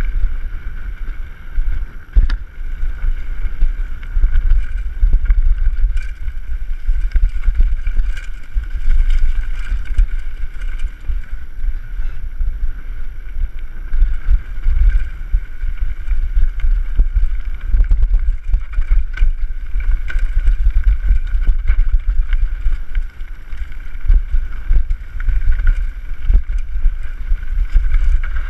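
Wind buffeting an action camera's microphone during a fast mountain-bike descent on a rough dirt track, with frequent knocks and rattles from the bike over bumps.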